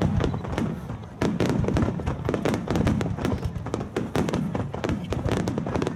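Aerial firework shells bursting one after another, several reports a second overlapping over a low rumble, with a brief lull about a second in.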